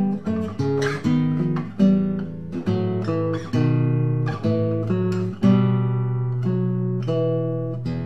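Background music: an acoustic guitar picking a melody of single plucked notes and chords, each note ringing and dying away, with a longer chord left to ring out from about halfway through.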